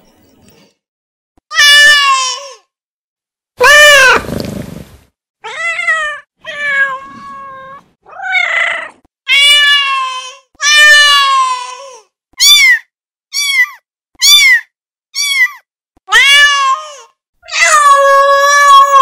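Domestic cat meowing: a series of about a dozen separate meows, each rising then falling in pitch. Several short meows come in quick succession around the middle, and one about four seconds in has a rough, noisy edge.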